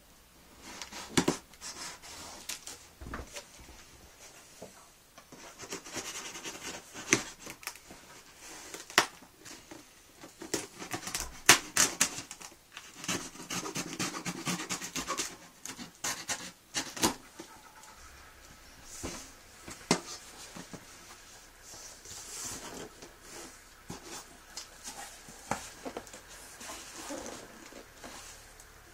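Packing tape on a cardboard shipping box being slit and torn open with a screwdriver: irregular scrapes, clicks and tearing. Near the end the cardboard flaps are folded back and the foil supplement bags inside are handled.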